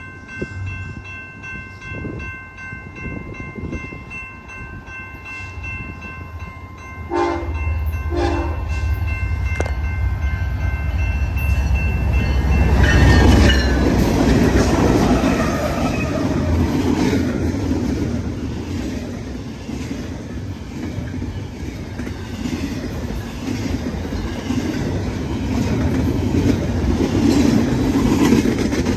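Grade-crossing bell ringing as a BNSF double-stack intermodal freight train approaches, with two short horn blasts about seven seconds in. The diesel locomotive is loudest as it passes about thirteen seconds in, then the container cars roll by with steady wheel clatter over the rail joints.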